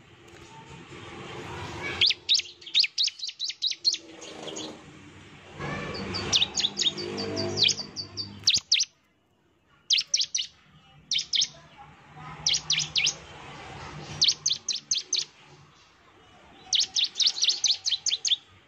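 Bar-winged prinia (ciblek) singing its rapid-fire "nembak" song: quick bursts of five to eight sharp, high chirps, repeated every second or two.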